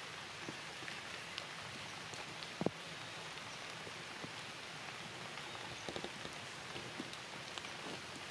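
Steady rain falling, an even hiss with scattered small drops ticking on surfaces. One louder tick comes about two and a half seconds in.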